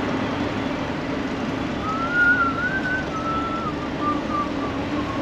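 Cat C15 diesel engine of a 2001 Peterbilt 379 running steadily, with someone whistling a wavering tune over it from about two seconds in, trailing off into short notes near the end.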